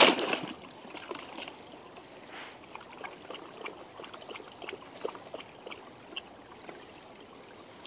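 Shallow icy creek trickling, with small irregular splashes and clicks as a dog noses and wades in the water. A single sharp knock right at the start is the loudest sound.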